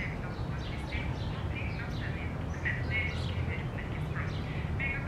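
A flock of crows calling: many short, overlapping calls, several a second, over a steady low hum.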